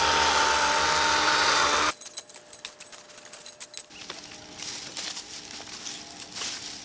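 DeWalt 12-inch cordless electric chainsaw running at full speed with a steady whine for about two seconds, then cutting off suddenly, followed by quieter scattered clicks and rustling.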